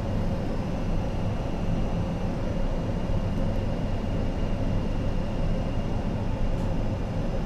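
Steady cockpit noise of a BAe 146-300 airliner on approach with gear down: an even rush of air over the airframe and the drone of its engines, with a faint steady tone running through it.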